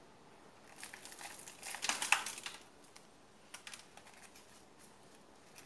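Crinkling and rustling of a cut plastic bottle being handled and pressed into place around a plant stem, with a few light clicks about three and a half seconds in.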